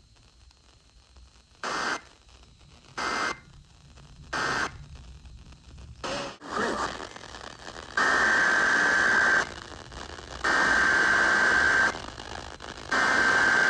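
Emergency Alert System SAME data bursts received over weather radio with static hiss. Three short bursts come within the first five seconds, the end-of-message signal closing the previous warning. From about eight seconds in come three longer raspy screeches, each about a second and a half with a second's gap between them: the header of the next tornado warning.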